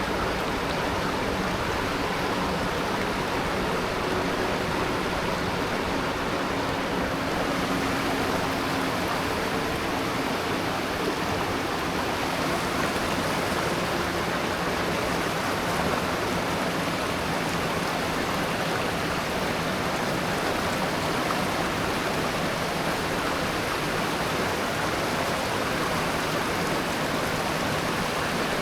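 Steady rushing of a mountain river and its waterfalls, with water pouring and churning over rocks.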